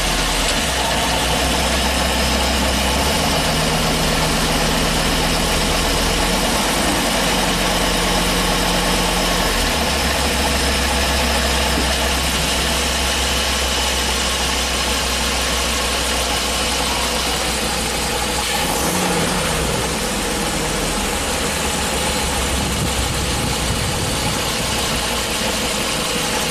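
Ford 6.8-litre V10 engine running at warm idle under a light load, its steady low note shifting for a few seconds early on. A pressure transducer sits in cylinder 4's spark-plug hole for a running compression test, so that cylinder is not firing. The cylinder is suspected weak, reading only about 45 PSI.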